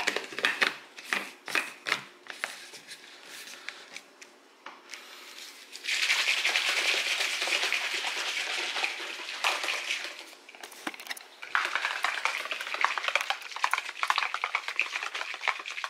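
Making a protein shake: a few knocks and clicks from handling the shaker bottle and powder scoop, then liquid poured into the shaker for about four seconds, and poured again after a short pause.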